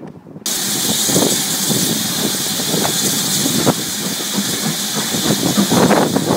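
Steam locomotive standing close by, hissing steadily as steam escapes. The hiss starts abruptly about half a second in.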